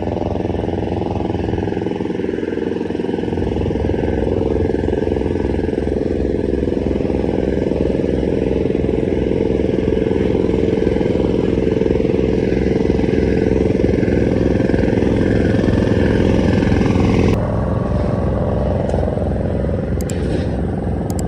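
An engine running steadily close by, with a regular low throbbing. About 17 seconds in, the higher part of the sound drops away abruptly while the engine's throb carries on.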